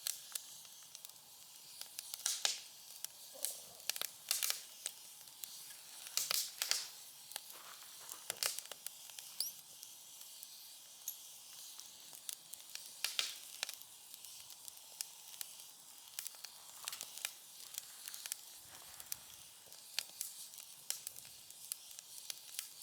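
Wood fire burning in a Montbell folding fire pit: firewood crackling with sharp, irregular pops over a faint steady hiss.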